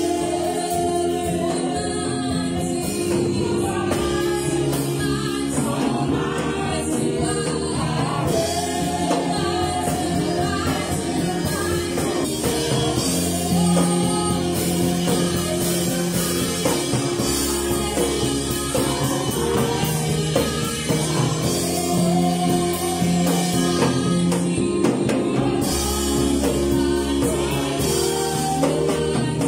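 Live gospel worship song: voices singing over a keyboard and a drum kit, played steadily without a break.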